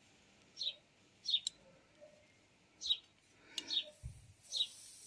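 A small bird calling outdoors with short, high, downward-sliding chirps, about one a second, along with a couple of faint clicks.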